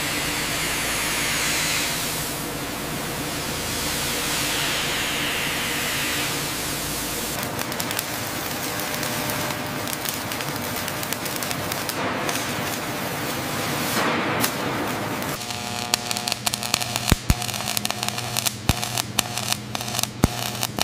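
Metal fabrication noise: a dense, steady hiss of sparks from cutting or welding on steel. About fifteen seconds in it gives way to a steady electric hum with sharp, irregular crackles and pops of arc welding.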